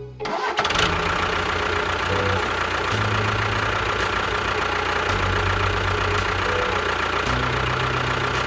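Engine running steadily, starting suddenly just after the beginning, over background music whose low notes change every second or two.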